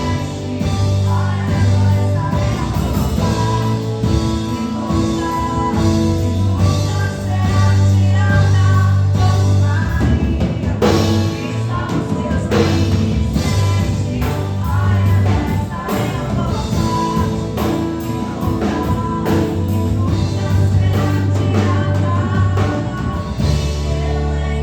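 Live worship song: voices singing over a band, with held bass notes and a steady drum beat.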